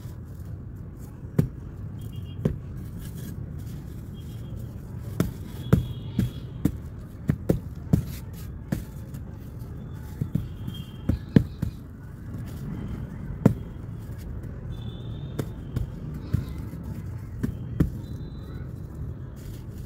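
Lumps of dry sand-cement being crumbled by hand and dropped onto a heap of broken pieces: irregular sharp knocks as chunks break and land, about twenty in all, with gritty crumbling in between. A steady low rumble runs underneath.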